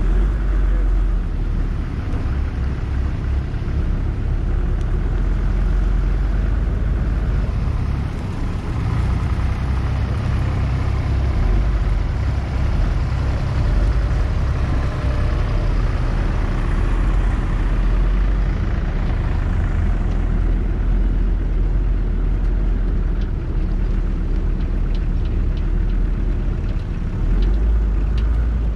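Car moving slowly with a steady low engine and road rumble.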